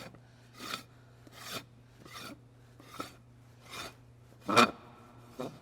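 Threaded hubcap on a manure-spreader wheel hub being spun on by hand: a short rasping scrape of the cap on the hub threads with each turn, about seven in a row, the loudest near the end.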